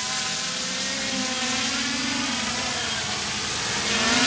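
Quadcopter electric motors and propellers whirring, their pitch sliding up and down as the throttle changes, with a steady high whine alongside.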